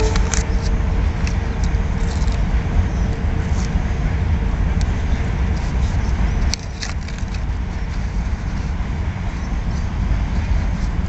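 Steady low rumble with scattered light clicks and taps from a fishing rod being handled. The rumble drops suddenly about six and a half seconds in.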